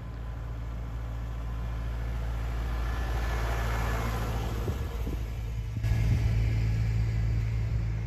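Compact cab tractor with a front snow-plow blade driving past close by. Its engine runs with a steady low hum that grows louder as it approaches and passes about halfway through.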